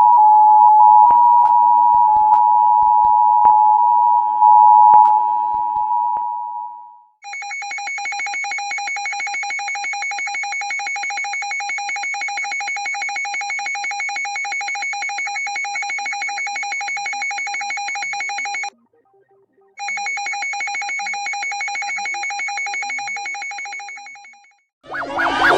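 Emergency alert tones: a steady two-note electronic attention tone with a few clicks, then after a brief gap a rapidly pulsing, ringing alarm tone. The pulsing tone breaks off for about a second, starts again and fades away near the end.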